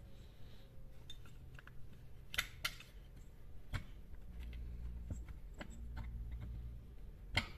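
Scattered sharp metal clicks and taps of a screwdriver and hands working the flywheel loose from a chainsaw's crankshaft, a low rumble in the middle.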